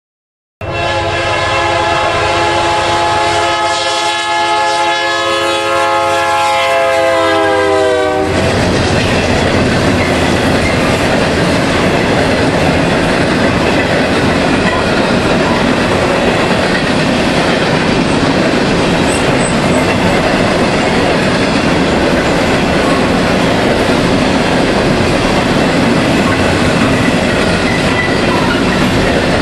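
BNSF GE locomotive's air horn sounding one long blast, its pitch dropping as the locomotive passes about eight seconds in. After that comes the loud, steady rumble and wheel clatter of an empty grain train of covered hopper cars rolling by at speed.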